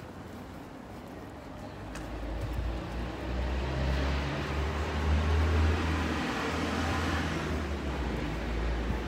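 A car driving past, its engine rumble and tyre noise building from about two seconds in to a peak midway, then easing off.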